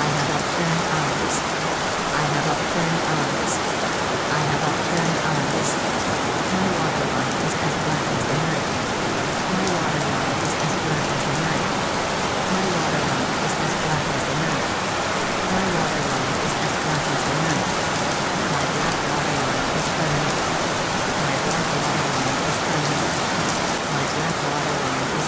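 Steady recorded rain, an even hiss with faint scattered drips, used as the masking track of a subliminal. Beneath it runs a low, broken murmur that fits buried spoken affirmations.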